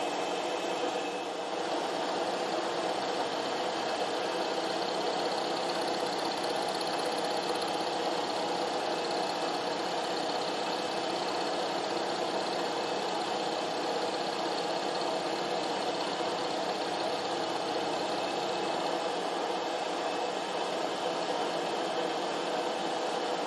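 Milling machine running steadily with an end mill cutting aluminium, as the workpiece is turned under the cutter on a rotary table to round it to a radius.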